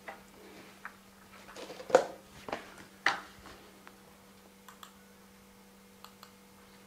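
Scattered clicks and taps on a laptop as it is operated, the loudest about two and three seconds in, over a faint steady hum.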